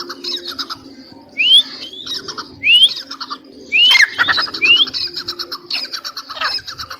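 Female francolin (teetar) calling: four short, sharply rising whistled notes, with scratchy, rapid chattering calls between them.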